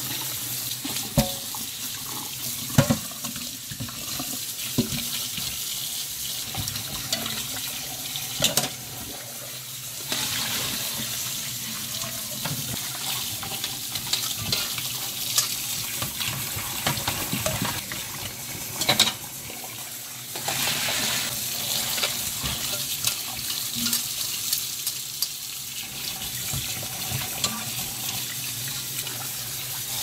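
Tap water running into a stainless steel sink and splashing over boiled ginger slices in a metal strainer and bowl as they are rinsed, with a few sharp clinks from the stirring.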